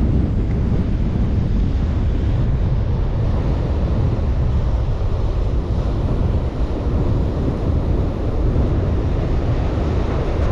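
Wind buffeting the microphone, with ocean surf breaking on the beach underneath: a steady, loud rumble.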